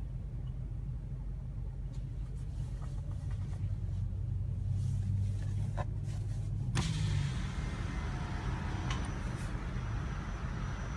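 Low steady rumble of a car heard from inside its cabin, with passing traffic. About seven seconds in there is a sharp knock, and after it the hiss of traffic noise is louder.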